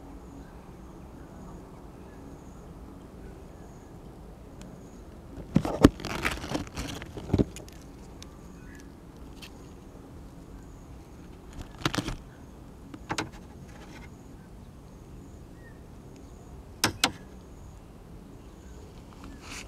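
A few sharp clatters and crunches from a meal of food and tableware being handled, in short clusters: the loudest run comes about six seconds in, with single ones near twelve, thirteen and seventeen seconds in. A faint steady hum lies under them.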